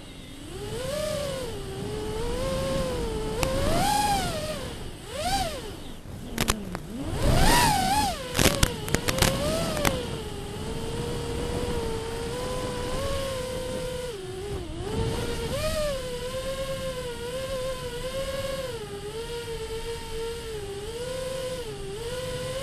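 FPV quadcopter's brushless motors whining, the pitch rising and falling continually with the throttle. Sharp crackling clicks come a third of the way in, the loudest part.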